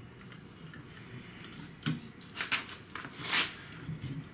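A few light metal clinks about two seconds in, then a brief scrape, as a large steel C-clamp is handled and set against a leaf-spring pack.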